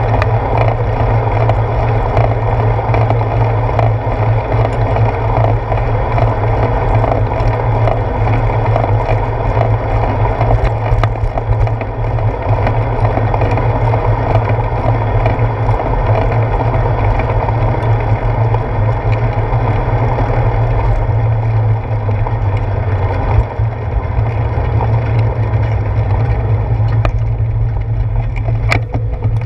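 Steady riding noise of a bicycle on wet pavement, picked up by a handlebar-mounted GoPro: wind on the microphone and tyre hiss, with small rattles and clicks from the bike over the road.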